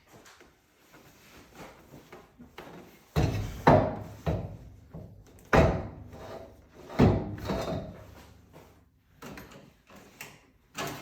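A racing seat being wrestled out of a truck cab, knocking and thudding against the cab as it is moved: a run of about seven sharp knocks, beginning about three seconds in.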